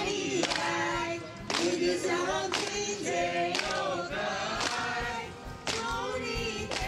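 A group of voices singing a song together, with a sharp beat of claps about once a second.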